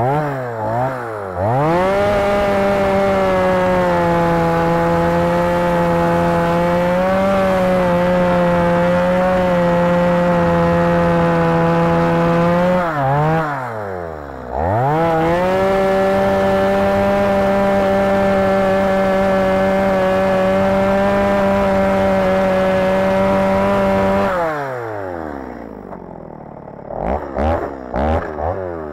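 Two-stroke chainsaw held at full throttle while cutting stumps down into sand, which is wearing and dulling the chain. The revs dip and climb back about halfway through. About 24 seconds in the engine falls back to idle as the worn chain is thrown off the bar, then it is blipped a few times.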